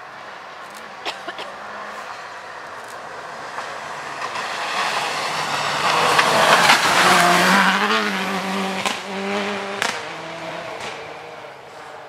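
Subaru Impreza rally car approaching fast on a gravel stage and passing close by: the engine gets louder, with gravel and tyre noise loudest about six to seven seconds in. As it pulls away the engine note rises and falls and fades, with a few sharp cracks along the way.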